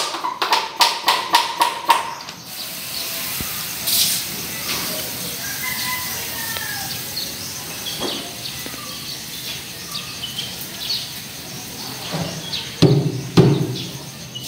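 Handheld pump pressure sprayer: a quick run of clicking pump strokes for about two seconds, then a steady hiss of water mist sprayed onto a cement wall to wet it before skim coating. Birds chirp faintly in the background.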